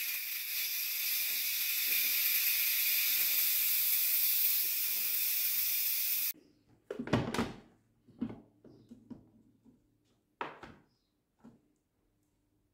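Electric pressure cooker's steam-release valve venting at a quick pressure release, a steady loud hiss that stops suddenly about six seconds in. Then a few short clunks as the lid is unlocked and lifted.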